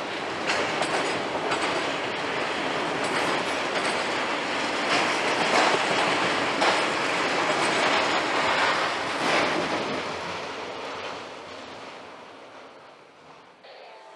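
Freight train of autorack cars rolling past, the wheels clicking over rail joints. After the last car passes, the sound fades away over the last few seconds.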